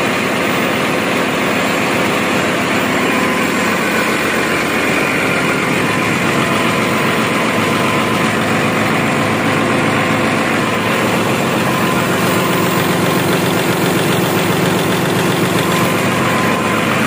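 Yanmar diesel generator engine running steadily: a loud, even machinery drone filling the engine room, with no change in speed.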